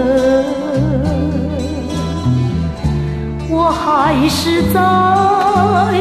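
Music from a Mandarin pop ballad record: a sustained lead melody with heavy vibrato over a steady bass line and light percussion.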